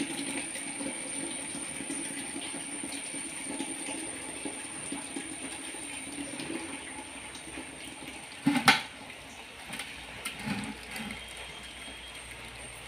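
Starchy water being drained off cooked rice, pouring in a steady stream from the cooking pot into a copper draining pot. About eight and a half seconds in comes a single sharp metal clank.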